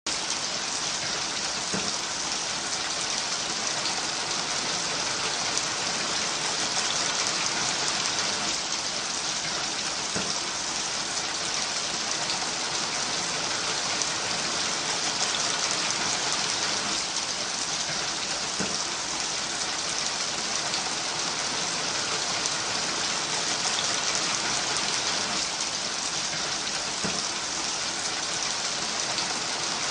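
Steady rain falling: an even hiss that does not let up.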